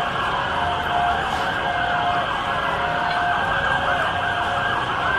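Several emergency vehicle sirens sounding at once, their rising and falling wails overlapping; about halfway through, a faster, yelping sweep stands out.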